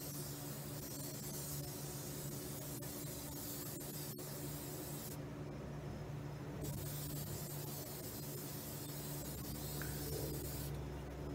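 Aerosol spray can hissing in long bursts as cleaner is sprayed onto the underside of a car hood. It stops for about a second and a half around five seconds in, resumes, and stops again just before the end.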